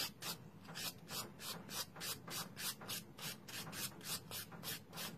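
A fine-grit, well-worn hand nail file rubbing back and forth over a cured acrylgel (polygel) nail, in quick even strokes at about three a second.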